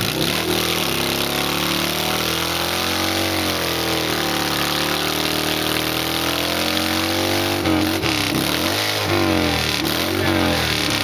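Motorcycle engine revving hard through a burnout, its rear tyre spinning on the concrete pad, over a constant hiss. The revs are held high and fairly steady at first, then about seven and a half seconds in they swing up and down several times.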